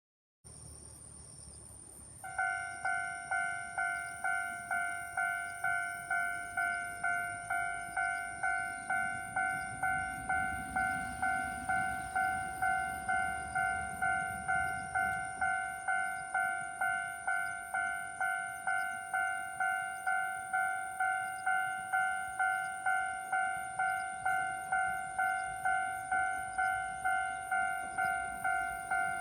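Japanese level-crossing warning bell at a third-class crossing (alarm only, no barrier) starting about two seconds in and ringing in an even 'kan-kan' beat of just under two strikes a second.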